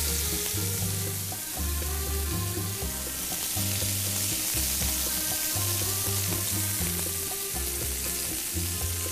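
Meat and pepper skewers sizzling on a hot flat-top griddle as they are turned with metal tongs, the sizzle strongest in the middle. Background music with a steady bass line plays underneath.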